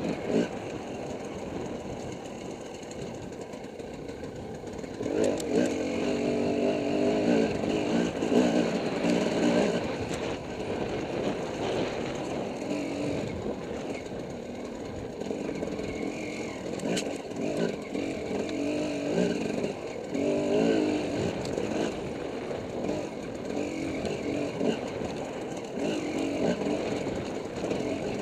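Dirt bike engine running under the rider, its pitch rising and falling as the throttle opens and closes on a tight trail, with a longer hard-throttle stretch about five seconds in.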